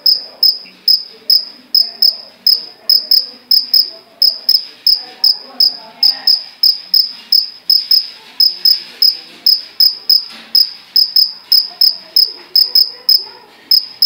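A cricket chirping loudly at close range: a high, shrill chirp repeated evenly about three times a second, made by the cricket rubbing its wings together.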